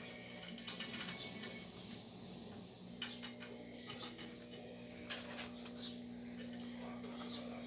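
Soft rustling, scraping and a few light taps of hands working on a craft project, over a steady low hum.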